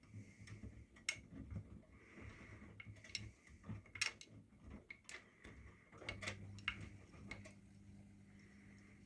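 Miele washing machine running, with irregular clicks and knocks over a low hum; about seven seconds in the clicking stops and a steady low hum carries on.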